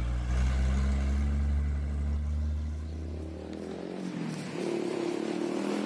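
Mercedes-Benz L911 truck's diesel engine driving past: a deep, steady drone that fades away about four seconds in.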